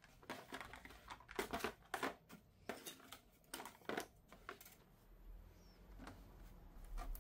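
Faint rustling, crinkling and light knocks of packaging being handled as a printer is lifted out of its box, in scattered short bursts that thin out after about four seconds.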